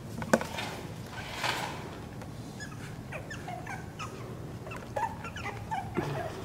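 Newborn puppies giving many short, high squeaks and whimpers while nursing from their mother, with one sharp tap just after the start.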